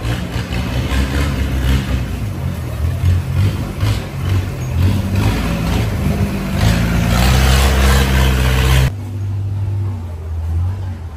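Loud engine running, its noise building until it cuts off abruptly near the end, giving way to a quieter low engine hum.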